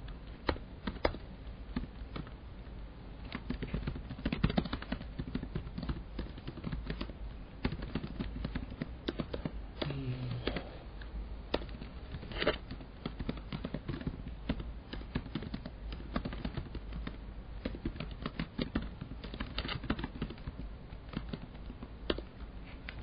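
Computer keyboard typing: a steady stream of irregular key clicks, over a low steady hum.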